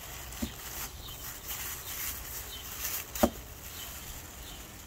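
Clear plastic bag crinkling and rustling as it is handled and opened, with small clicks and one sharp click about three seconds in.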